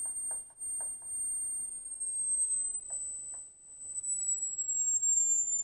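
A small speaker driven by an adjustable-frequency signal generator board, sounding a clean, steady high-pitched tone that steps slowly lower as the frequency is turned down. Light button clicks are heard a few times along with the tone.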